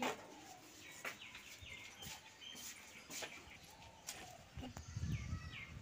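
Faint bird chirping: short falling chirps in quick runs, twice. A low rumble comes in near the end.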